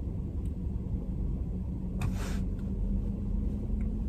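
Steady low rumble and hum inside a car's cabin, with a brief soft noise about two seconds in.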